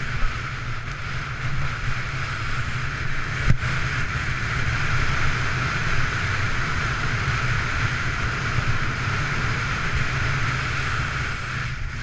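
Skis running over packed snow at speed, with wind buffeting the camera's microphone: a steady rush over a low rumble. A single sharp knock about three and a half seconds in.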